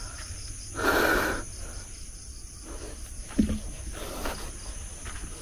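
Steady high chirring of night insects, with a short breathy rush of noise about a second in and a brief low sound a little past the middle.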